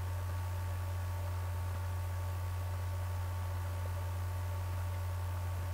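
Steady low electrical hum, with a fainter steady high tone above it; no pencil-on-paper sound stands out.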